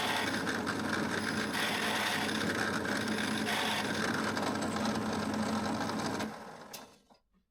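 Drill running steadily as a large bit bores through a spruce board for a 32 mm handle hole, then switched off about six seconds in and spinning down.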